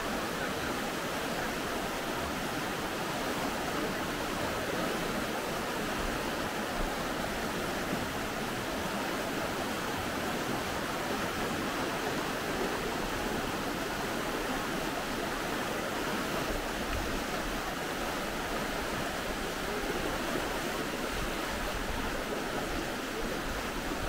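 Fast-flowing glacial river rushing over stones, a steady, unbroken sound of water. A low rumble joins in during the second half.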